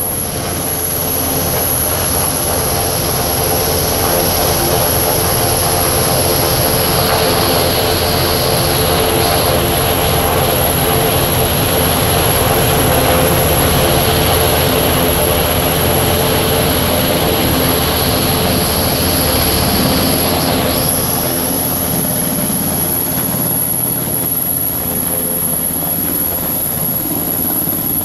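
NH90 Caïman twin-turbine helicopter hovering low overhead, its rotor and engines running steadily and loudly, with a high whine that comes and goes twice.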